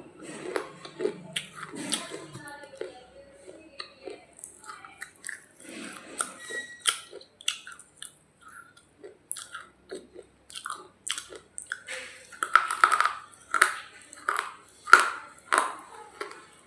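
A person biting and chewing crunchy pieces of dried clay ('roti' clay) close to the microphone. A run of sharp, irregular crunches, loudest and densest in the last few seconds.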